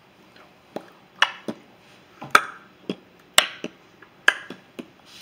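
Saltine crackers crunching and snapping: a quick, irregular string of about ten sharp cracks.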